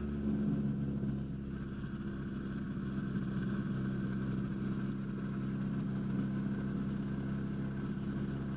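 Kolb Firefly ultralight's engine running steadily at low throttle with an even pitch while the aircraft taxis on grass.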